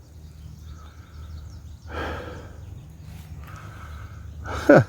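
A man breathing heavily while walking, with breaths about every second and a half. A short falling voiced grunt comes just before the end.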